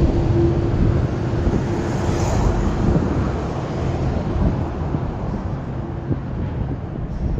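Road traffic beside the barrier: a vehicle goes past with a steady hum and tyre noise that fades away over the seconds, with some wind on the microphone.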